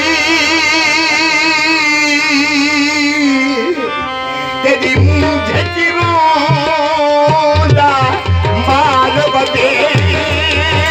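Live qawwali music: a singer holds a long note with vibrato for the first few seconds, then tabla strokes come in about five seconds in under a moving vocal line.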